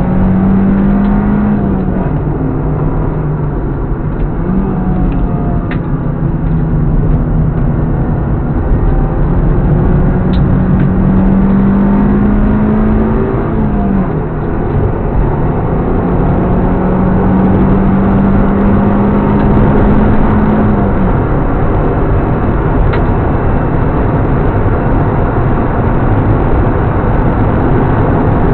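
Honda Civic four-cylinder engine heard from inside the cabin while driving hard on a circuit, with steady road and wind noise. The engine note climbs slowly in long pulls and drops back about two, fourteen and twenty-one seconds in, as the car is worked through the gears and off the throttle.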